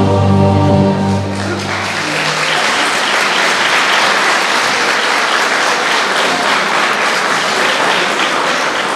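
Backing music ends on a held chord about two seconds in, and audience applause follows, dense and steady.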